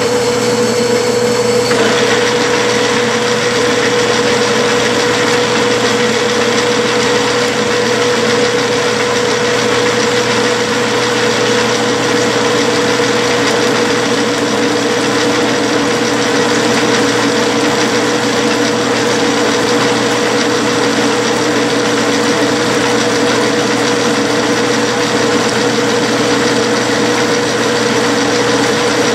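A Clausing metal lathe runs steadily at 360 RPM under power feed while a Brown & Sharpe pinch-type knurling tool rolls a medium diamond knurl into the turning rod. It is a steady machine hum with a constant mid-pitched whine, a little brighter and hissier for the first couple of seconds.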